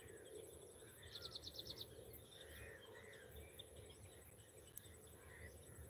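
Faint open-air ambience with scattered distant bird calls and a brief run of rapid high chirps about a second in.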